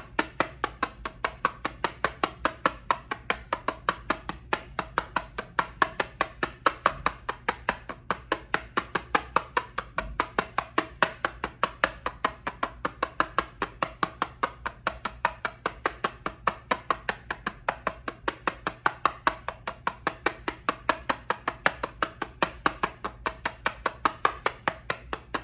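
Rapid, even tapping on an eyeshadow palette case, about five light taps a second, kept up steadily.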